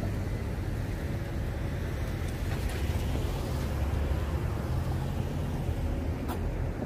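Steady low vehicle engine rumble, with a single sharp click about six seconds in.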